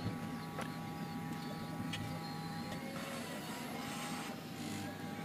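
Hot air rework station blowing steadily, its fan a constant hum and hiss, as it heats solder paste through a BGA stencil to reball a phone CPU. A few light clicks sound over it.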